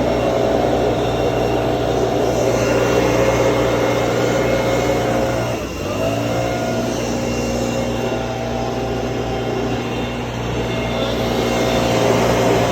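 A late model race car's V8 engine running steadily at low speed, its note dipping briefly and picking back up about six seconds in.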